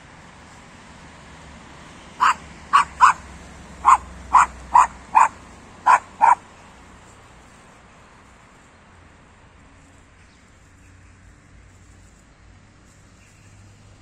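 A dog barking, about nine short sharp barks in quick succession starting about two seconds in.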